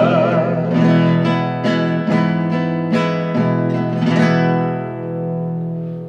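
Acoustic guitar playing the closing phrase of a song: a run of plucked chords, about two or three a second, that then rings out and fades away.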